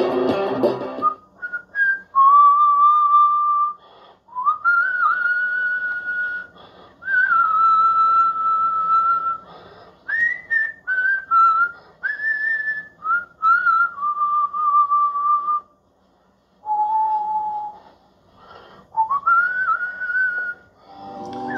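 A man whistling a slow melody, in phrases of held and sliding notes with short breaths between them. It follows the last second of electric guitar playing.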